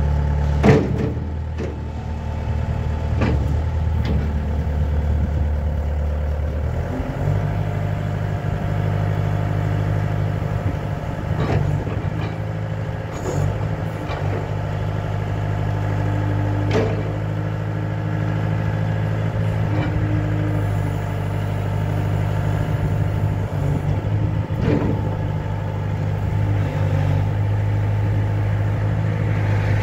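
2006 Bobcat S300 skid-steer loader's diesel engine running, stepping up from a low idle to a higher steady speed about seven seconds in as the loader arms work the clamp bucket. A few sharp knocks are heard along the way.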